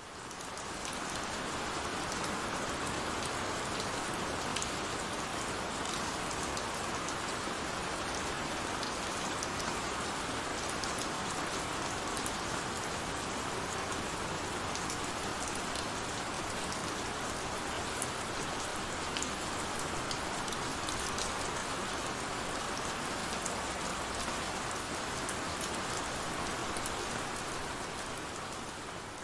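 Steady heavy rain: a dense, even hiss with scattered sharp drop ticks. It fades in over the first second and begins to fade out near the end.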